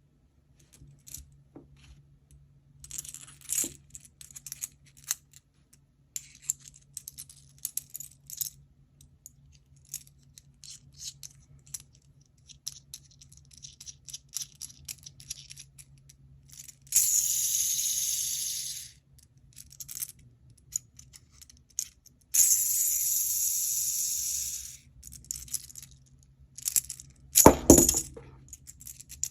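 KTS Gear Storm aluminium cranky fidget being worked by hand: light metallic clicks and clinks of its gears and parts throughout. Twice it gives a high whirring spin of about two seconds that fades out. There is a single loud knock near the end.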